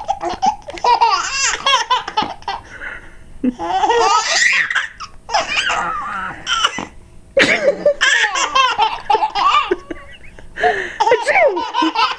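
Twin babies laughing at a sneeze: bouts of high, wavering giggles and belly laughs, with short breaks about 3, 7 and 10 seconds in.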